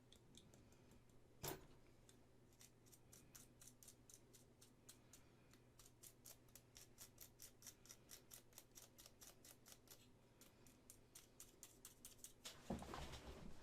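Faint, rapid clicking of small hand-tool work on a resin model kit, about five clicks a second with a short break, after a single knock about a second and a half in. A louder rustle comes near the end.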